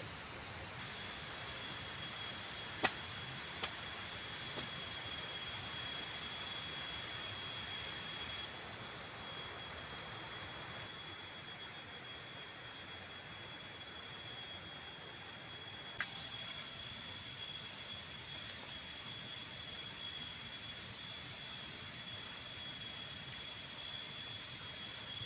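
Steady rain, an even hiss, with a thin, continuous high-pitched whine over it; a single sharp click about three seconds in.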